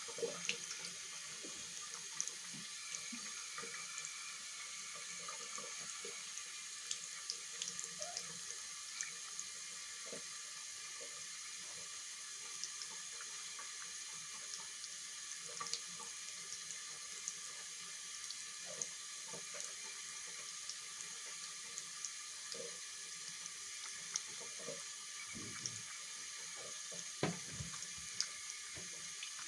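Tap water running into a sink basin in a steady hiss, with frequent small splashes and drips ticking through it.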